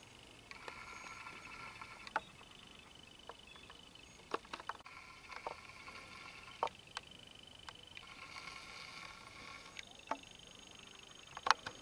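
Quiet countryside ambience: scattered short chirps and clicks over a low hiss, with faint high tones that come and go.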